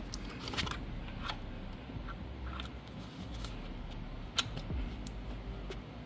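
Hands fitting a rubber oil catch can (PCV) hose into place: scattered rustles and small clicks, with one sharp click about four seconds in.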